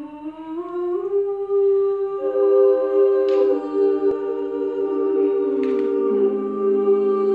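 Small mixed group of men's and women's voices singing a cappella in held, wordless humming chords that shift every second or two, with a low note joining near the end. There are two short breathy hisses, about a third of the way in and again past the middle.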